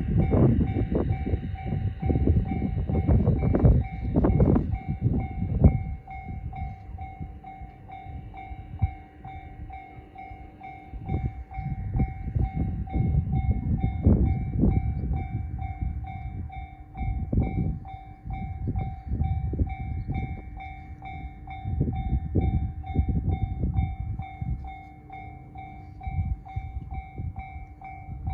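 JR standard electronic level-crossing bell ringing in a steady repeating pattern while a freight train passes. Its wheels clatter over the rail joints, loudest in the first six seconds, then go on more softly in waves.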